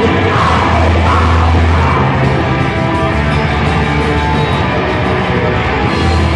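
Loud heavy rock music played by a band.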